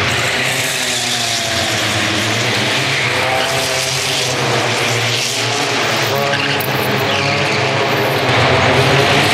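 Hatchback race cars drifting on an indoor circuit: engines revving up and down with tyres squealing and skidding, echoing in the hall. It gets a little louder near the end.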